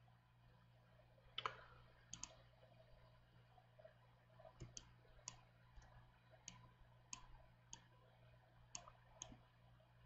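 Faint computer mouse clicks, about a dozen short sharp clicks at irregular intervals, over a low steady hum.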